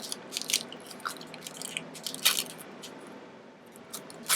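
Scattered small clicks and crinkling as wax paper backing is peeled from the adhesive on a replacement iPod click wheel, the paper sticking to the glue.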